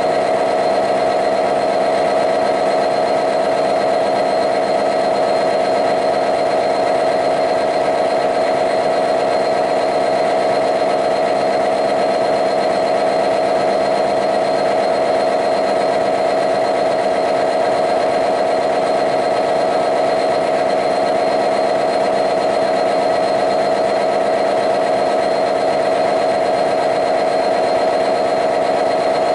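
A Class 66 locomotive's EMD 710 two-stroke V12 diesel engine running steadily, heard from inside the engine room, with an even, unchanging drone.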